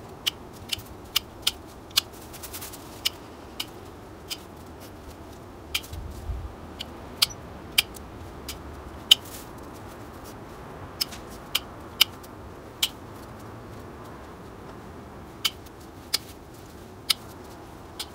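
Pruning shears snipping through the stems of a white Lady Banks rose during a hard winter prune: a run of about twenty sharp snips at irregular intervals, with a couple of short pauses. A soft low thump about six seconds in.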